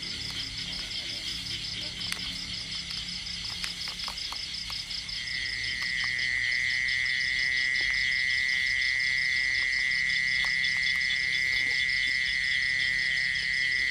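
Night insect chorus: a fast, even pulsing trill of crickets, joined about five seconds in by a louder, steady lower-pitched trill that holds unbroken.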